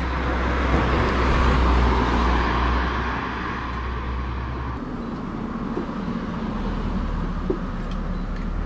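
Road traffic noise: a vehicle passing, its noise swelling and fading over the first few seconds, over a low engine rumble that stops about five seconds in.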